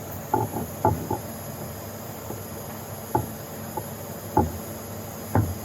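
Scattered short knocks and taps, irregularly spaced: a quick cluster in the first second, then single ones about every second, over a steady faint hiss.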